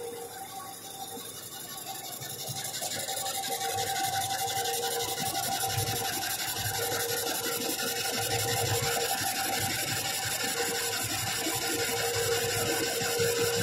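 Centre lathe running with its chuck spinning, a steady whine with two held tones over a rough grinding hiss, as the tool faces the end of the workpiece. It grows louder over the first few seconds, then holds steady.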